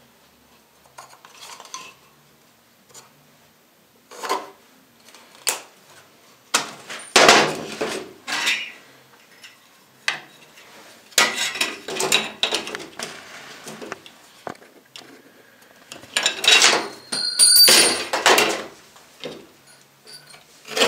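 Handling noises on a workbench: a steel tape measure and hand tools clattering and clinking in separate bursts a second or two long, with a brief metallic ring near the end.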